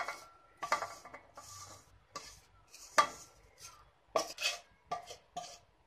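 A wooden spatula scrapes fried thin vermicelli out of a metal karahi into a ceramic bowl. It makes a series of short scrapes and clatters, with a sharp knock about three seconds in.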